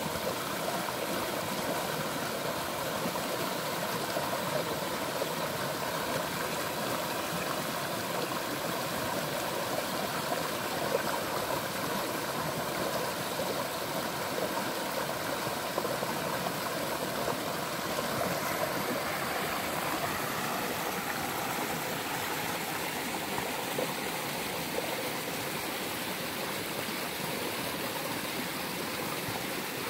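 Steady rush of a flowing stream, an even water noise without breaks.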